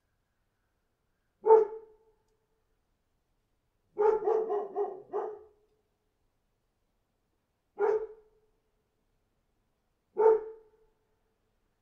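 A dog barking: one bark, then a quick run of about six barks, then two more single barks, with silence between them.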